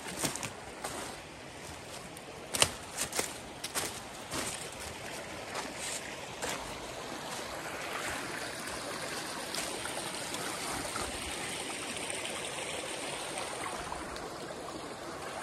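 Small woodland stream running and trickling over stones, a steady rush that becomes fuller in the second half. A few sharp clicks sound over it in the first half.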